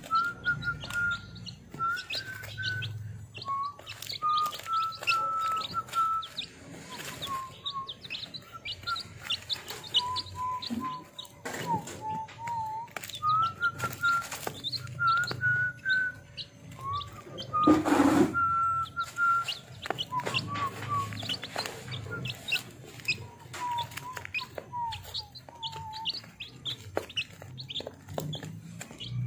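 A brood of week-old chicks peeping: a busy, continuous stream of short, high cheeps. A lower line of held notes stepping up and down, like a tune, runs beneath them.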